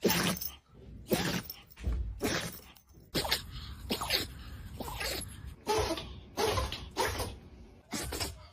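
A dog sneezing over and over: about a dozen short, sharp sneezes in quick succession, some coming in pairs.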